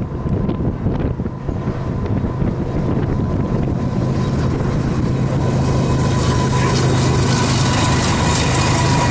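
GE ES44AH diesel-electric locomotive's V12 engine approaching, its steady low drone growing louder over the last few seconds. Wind buffets the microphone throughout.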